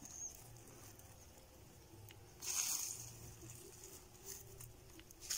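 Bare hands scraping and pressing loose, crumbly soil around a newly planted sapling's stem: a faint rustling scrape of earth, loudest for about a second near the middle.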